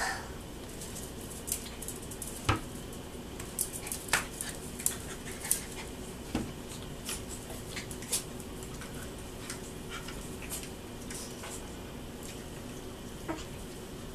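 Shih Poo puppies playing on a tile floor: scattered sharp clicks and taps of small claws and toys, busiest in the first half and sparser later, over a faint steady hum. A brief squeak sounds right at the start.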